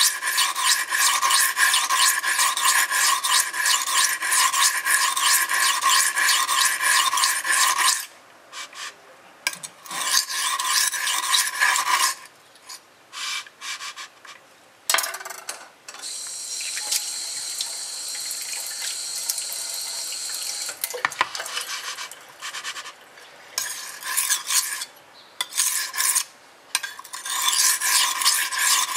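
Stainless kitchen knife blade being stroked rapidly back and forth across a coarse whetstone, making a gritty scraping rasp. The strokes run continuously at first, stop about a third of the way in, and resume in shorter runs near the end.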